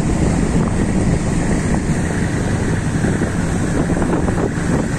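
Wind buffeting the microphone on a moving river cruise boat, over a steady low rumble from the boat's engine and the water it moves through.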